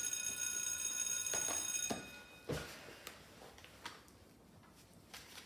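A steady, high-pitched ringing with many tones sounding together stops abruptly about two seconds in. A few light clicks and rustles of handling follow.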